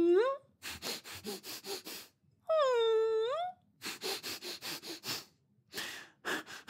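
A voice actor's dog whimpering and crying: drawn-out whines that dip and rise in pitch, one ending about half a second in and another about 2.5 s in, each followed by a run of quick sniffling sobs.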